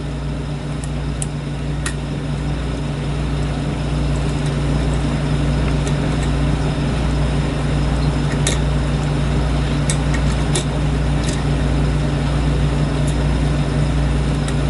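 A steady low mechanical hum, with a scattering of faint, sharp clicks from a lock pick working the pins inside a lock cylinder.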